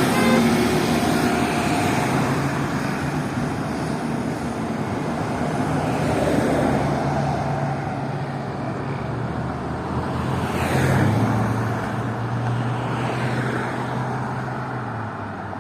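Diesel engine of a Blue Bird All American school bus, its Cummins ISC, droning steadily as the bus drives off, gradually fading amid road traffic noise. About two-thirds of the way through the engine note shifts and a passing vehicle whooshes by.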